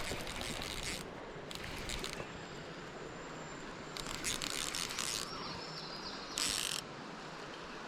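Fishing reel clicking and whirring in several bursts as a hooked small smallmouth bass is reeled in.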